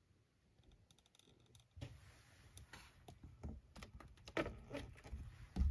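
Faint irregular clicks and rustling over a low rumble, starting about two seconds in, with the loudest click near the end.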